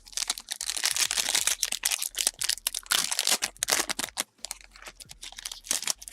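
Trading cards and their plastic sleeves being handled: dense rustling and crinkling with many quick clicks, loudest in the first four seconds and dropping off toward the end.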